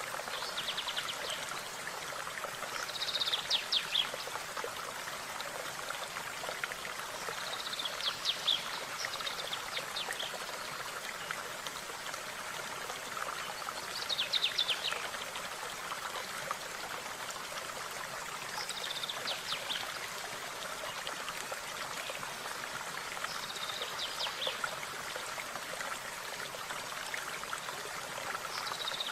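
A small stream running steadily, with a songbird repeating a short, high trilled phrase about every five seconds.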